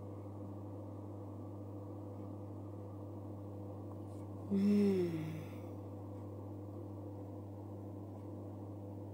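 Steady low electrical-sounding hum, with one short wordless voice sound from a woman about halfway through: a closed-lip 'mm' that falls in pitch and lasts about a second.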